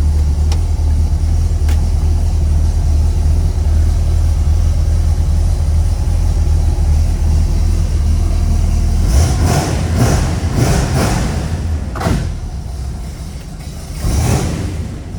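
1970 Pontiac GTO's 455 V8 idling with a steady low rumble, then revved in several quick throttle blips in the last third, each one falling back toward idle.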